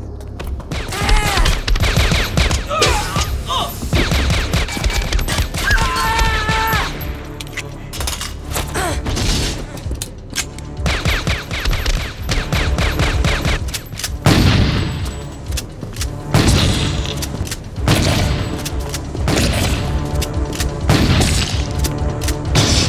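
Film-soundtrack gunfire from a pistol and a lever-action shotgun, shot after shot in rapid exchanges, with the heaviest blasts in the second half, over background music.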